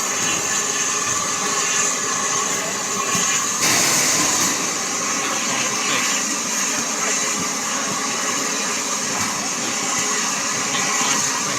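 Bulleid West Country class steam locomotive standing and hissing steam steadily, with a louder, sharper rush of steam about three and a half seconds in that eases back after about a second.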